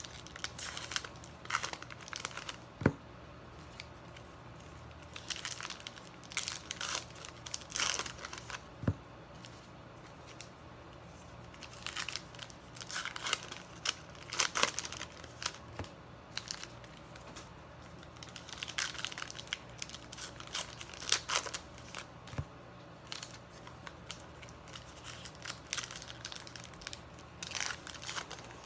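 Wrappers of 2018 Topps Heritage baseball card packs being torn open and crinkled by hand, in irregular bursts of crackling with a few sharp clicks.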